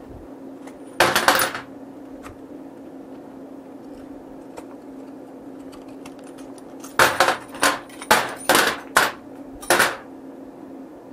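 Small metal shim spacers clinking as they are pulled out of a freshly welded stainless steel wire basket and set down: one rattling clink about a second in, then a quick run of about seven sharp clinks from about seven to ten seconds in. A steady low hum runs underneath.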